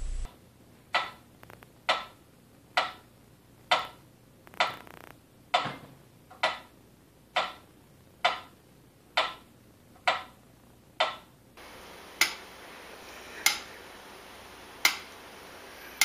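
Metronome ticking steadily, a sharp click a little under once a second; after a cut near the end, a metronome ticking more slowly, about once every second and a half.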